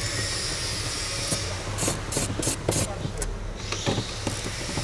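A series of short, irregular scrapes and clicks from hand tools and car trim being handled in a car's interior, over a steady low hum.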